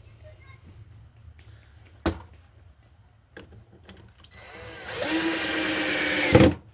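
A knock on wood, then a power drill spinning up and driving a screw into pine boards for about two seconds, stopping with a clunk as the screw seats.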